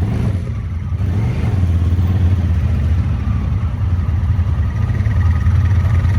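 ATV engine running, a steady low rumble that gets a little louder about a second in as the quad is throttled forward.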